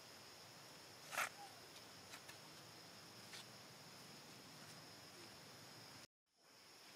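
Faint outdoor ambience with a steady high-pitched insect hum. A brief sharp click-like sound about a second in, then a few fainter clicks. The sound drops out completely for a moment near the end.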